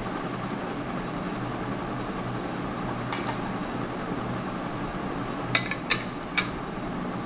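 A metal spoon clinking against a glass plate three times in quick succession, over a steady low hum.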